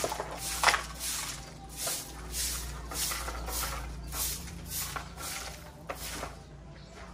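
Broom sweeping dust and grit across concrete ground, swishing strokes close to two a second that stop near the end.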